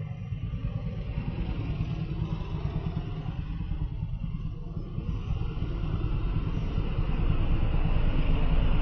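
Road traffic: trucks and a motorcycle rolling past, a steady low rumble that grows louder over the last few seconds as a truck draws near.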